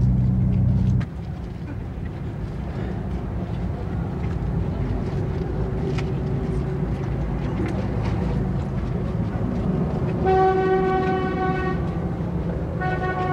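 Street traffic rumble. A heavy engine drone dominates the first second and cuts off abruptly. A vehicle horn sounds for about a second and a half some ten seconds in, and again briefly near the end.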